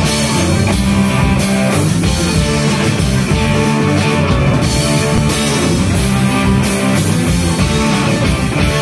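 Live rock band playing loud: electric guitar through an amplifier over a drum kit, with repeated cymbal crashes.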